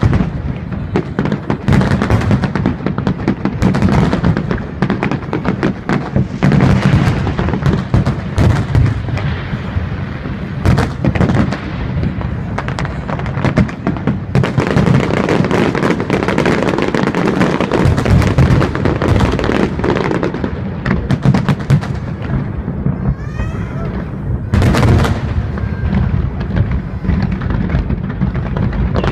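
Aerial firework shells bursting in a dense, continuous barrage: rapid overlapping booms and crackles, with no pause between bursts.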